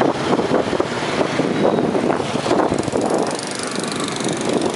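Busy street traffic close by: motorbike and scooter engines running continuously, with cars passing.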